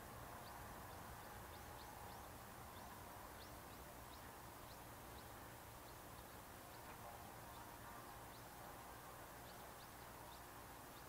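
Faint, steady hiss and low hum of a distant Sikorsky S-76C twin-turbine helicopter running on the ground with its rotor turning. Many short, high chirps of small birds are scattered over it.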